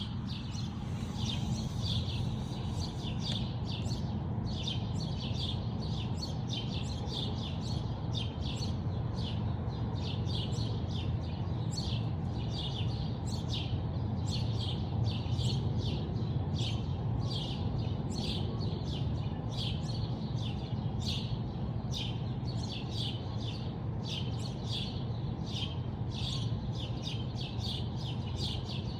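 Small birds chirping rapidly and without pause, many short high chirps overlapping in a morning chorus, over a steady low rumble.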